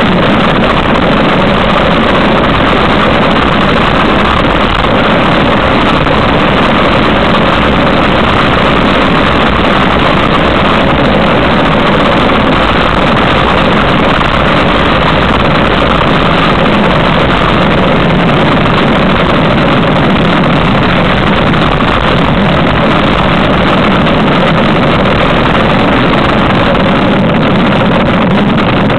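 Loud, steady rush of wind on the microphone of a cyclist riding fast downhill on a bicycle.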